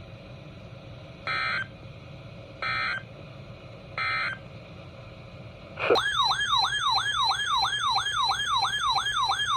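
Three short buzzing EAS data bursts, about a second and a half apart: the end-of-message code closing the previous alert. About six seconds in, a loud warbling siren-like alert tone starts, its pitch sweeping down and back up about three times a second.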